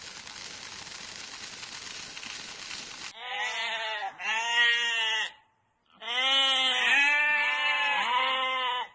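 A steady hiss for about three seconds, then an animal bleating twice, two long calls with a quavering pitch, the second longer.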